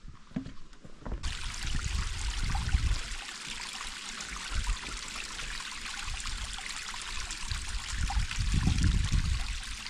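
Running stream water, a steady rushing hiss that comes in suddenly about a second in, with low rumbling underneath twice.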